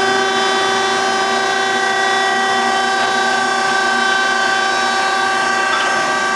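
Hydraulic power unit of a Philadelphia Tramrail 3400HD vertical baler, its 10 HP electric motor and pump running with a steady whine as the platen makes its upstroke and lifts the safety gate.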